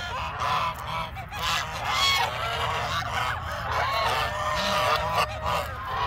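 Geese honking among other poultry calling, a continuous overlapping din of many birds at once.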